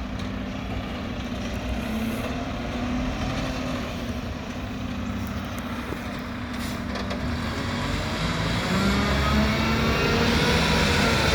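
Diesel engine of a Mack garbage truck with a McNeilus front-loader body running steadily, growing louder over the last few seconds.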